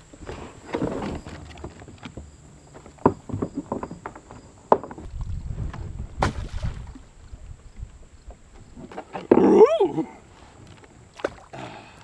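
Hollow plastic Canada goose floater decoys being handled and set out from a kayak: scattered knocks and clunks of decoys against each other and the hull, with water moving around the boat. About three-quarters of the way through comes the loudest sound, a short cry whose pitch bends up and down.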